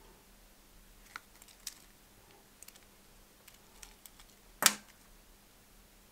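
Diagonal side cutters cutting a thin electrical wire. A few faint clicks of handling come first, then one sharp snip a little past the middle.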